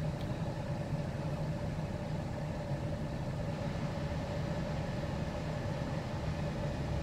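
Car engine idling with a steady hum, heard from inside the parked car's cabin.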